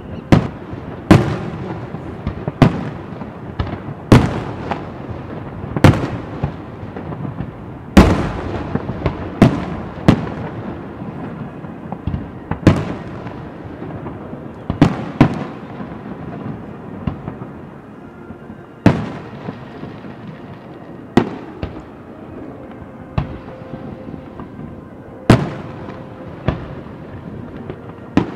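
Aerial fireworks shells bursting: a sharp bang every one to two seconds at irregular intervals, each dying away in an echo, the bangs coming thicker in the first half and sparser later.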